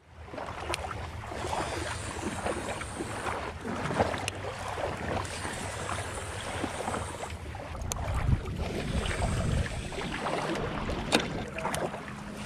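Water slapping against a small fishing boat, with wind on the microphone and a few sharp clicks or knocks.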